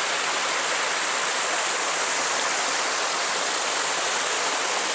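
Running water of a stream, a loud, steady, even rush.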